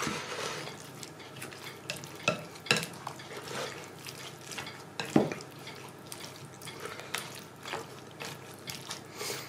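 A slotted spatula stirring sliced sausage, onions and potatoes through a thick sauce in a glass bowl: a soft, wet stirring noise with scattered clicks and knocks of the utensil against the glass.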